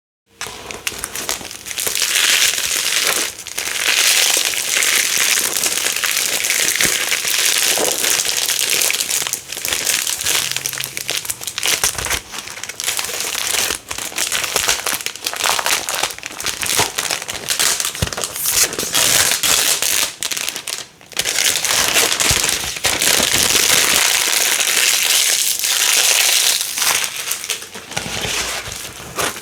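New black hook-and-loop (velcro) plates being unpacked and pulled apart: a loud, crunchy crackling and ripping that runs in long stretches with short pauses, the longest pause about 21 seconds in.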